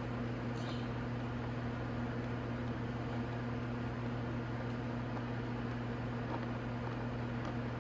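Steady low hum with a constant pitch, with one faint click about half a second in.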